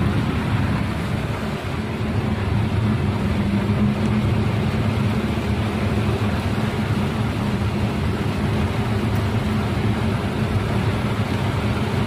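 Steady cabin noise of a car driving in heavy rain: a low, even engine and tyre hum under a constant hiss of rain and wet road.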